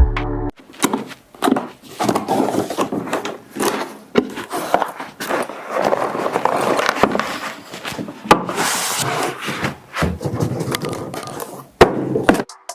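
Packaging being handled: irregular rustling and scraping with frequent sharp knocks and clicks as the boombox is unpacked from its box.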